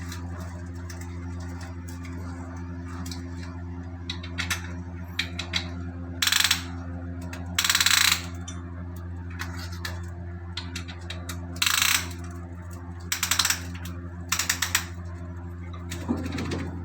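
Several short bursts of rapid metallic clicking from ratcheting tools at work on the engine, over a steady low machinery hum.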